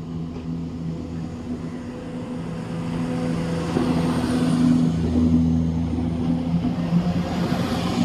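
Diesel multiple unit's underfloor engines running with a steady hum, growing louder about halfway through as the train pulls away from the platform.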